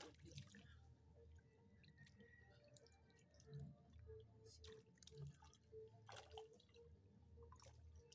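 Faint drips and small splashes of water, a few scattered over several seconds, as hands feel around in the water for a fish.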